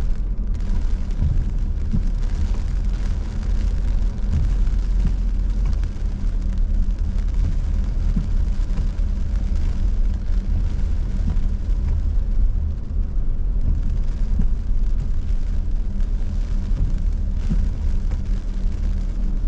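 Steady low rumble of a car driving, heard from inside the cabin, with rain hitting the car.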